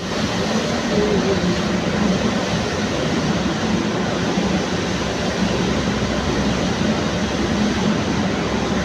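Kolkata Metro train running on test, a steady, even running noise with no clear breaks.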